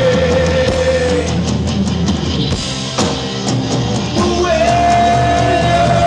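Live rock band playing: electric guitar, bass and drums with cymbal hits, and a singer's voice. A long held note runs up to about a second in, and another long sustained note comes in about four and a half seconds in.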